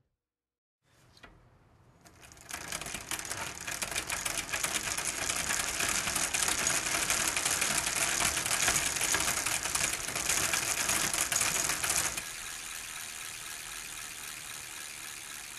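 Rapid, dense mechanical clattering, made of many fast clicks, that fades in over the first couple of seconds and drops to a quieter, steadier level about twelve seconds in.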